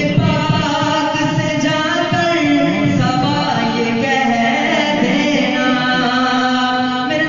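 A man singing an Urdu devotional song, holding long notes that glide up and down between phrases.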